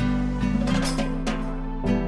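Background music: acoustic guitar playing with a steady beat over a low bass line.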